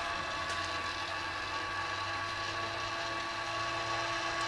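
Rotisserie motor running steadily, turning the spit and its wire basket: an even mechanical hum that holds at one pitch throughout.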